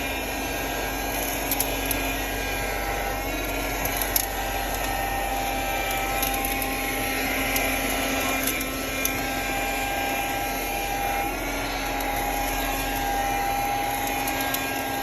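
A 1973 Dynamic handheld car vacuum runs steadily with a motor whine. A few sharp clicks come through as debris sucked in strikes its fan. The dirt passes through the fan, as in a direct-air vacuum.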